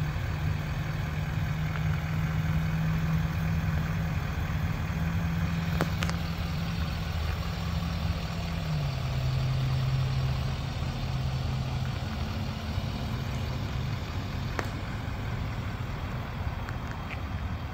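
Duramax 6.6-litre turbo-diesel V8 of a Chevrolet Silverado 3500HD idling steadily. Its idle note steps down a little about nine seconds in.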